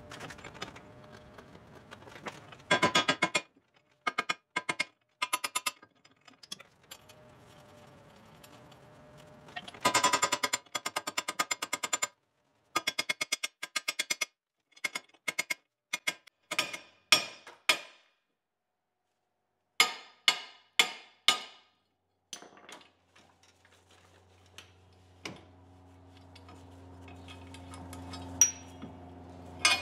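Hammer blows on a 2006 Jeep Commander's front steering knuckle to break it loose. There are bouts of rapid strikes and single blows with a metallic ring. A low steady hum builds near the end.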